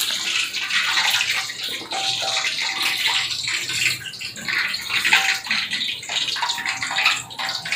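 Pots of goat gulai cooking over a wood-fired stove: a steady, crackly hiss of fire and bubbling.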